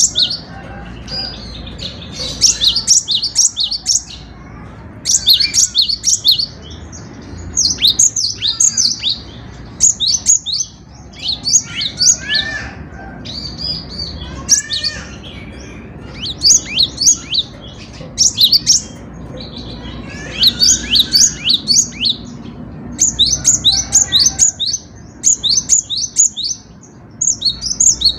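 Cinereous tit (gelatik batu) singing: repeated phrases of rapid, high chirping notes, each lasting one to two seconds, separated by short pauses.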